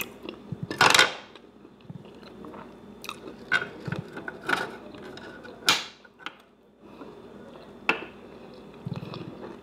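A person chewing a mouthful of food with lips closed, with a few sharp, wet mouth smacks and clicks; the loudest comes about a second in.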